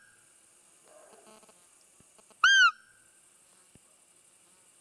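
Roe deer bulb call squeezed once, about halfway through: a single short, loud squeak that rises and then falls in pitch, imitating a roe deer's peep to lure a buck.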